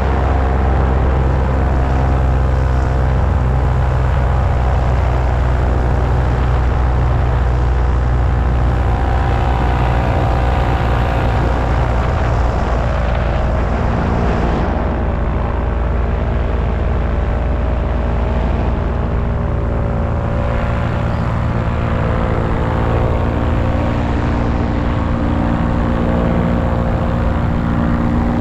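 Paramotor's backpack engine and caged propeller running steadily in flight: a continuous drone made of a stack of steady tones. Its note shifts slightly about halfway through.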